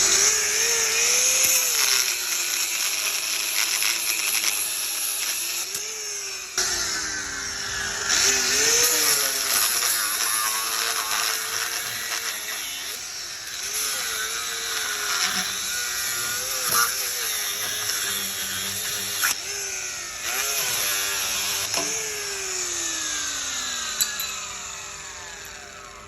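Electric drill running in spells at varying speed: the motor pitch rises and falls with hiss over it and a few sharp knocks, then winds down near the end.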